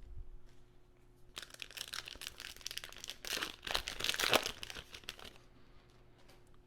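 Foil wrapper of a trading-card pack crinkling and tearing as it is opened, for about four seconds.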